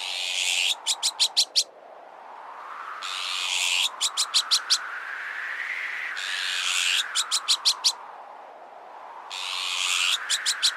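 Azure-winged magpie alarm calls: a harsh rasping call followed by a quick run of about five short sharp notes, repeated roughly every three seconds. Under them a wind whoosh slowly rises and falls in pitch.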